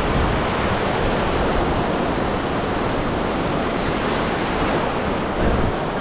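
Ocean surf: waves breaking and foamy water washing through the shallows, a steady rushing noise.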